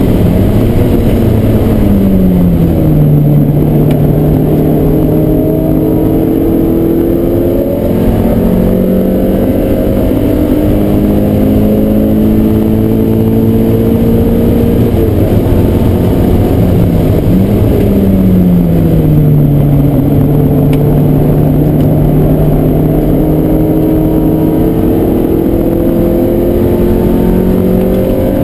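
1990 Mazda MX-5's 1.6-litre four-cylinder engine heard from inside the cabin while lapping a race track. The engine pitch drops twice as the car slows for corners, about a second in and again near eighteen seconds. After each drop it climbs slowly through long pulls, over steady road and wind noise.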